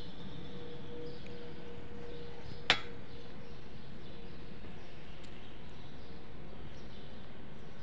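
Steady outdoor street ambience with a faint hum, broken by a single sharp click a little under three seconds in.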